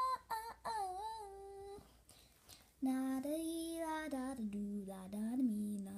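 A girl singing a wordless tune in a high voice, breaking off about two seconds in; after a short pause a lower voice sings long held notes.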